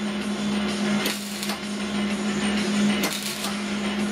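Electric arc welder crackling steadily as it welds, louder in surges about every two seconds, over a steady low electrical hum.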